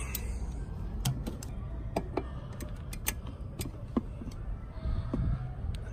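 Scattered light metallic clicks and taps of locking vice grips being handled and set onto a brake line fitting, at irregular intervals over a low background rumble.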